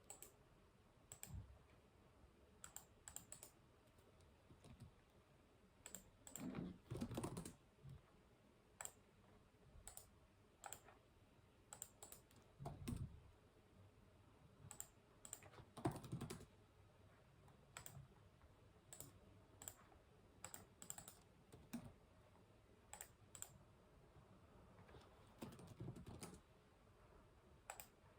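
Computer keyboard typing and mouse clicking, quiet and sporadic: scattered single clicks with a few short runs of keystrokes.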